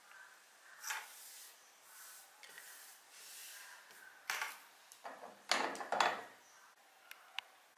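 Scattered rustling and soft knocks of hands handling thread and tools on a worktable, with two small sharp clicks near the end.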